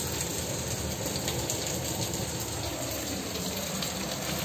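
Steady sizzling hiss of onions, capsicum and sauces frying in a steel wok on a gas stove.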